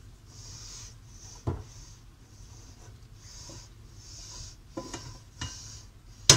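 A kitchen utensil scraping food against cookware in short repeated strokes, about two a second, with a few light knocks and one sharp clank near the end. Minced lamb and mashed potato are being combined in a dish.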